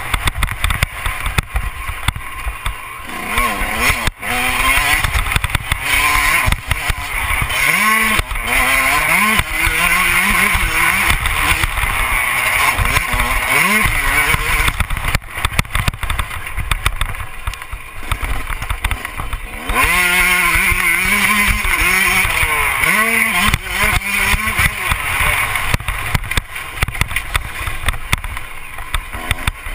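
Motocross bike's engine revving hard on a dirt track, its pitch climbing and dropping back again and again as the rider works through the gears and the throttle.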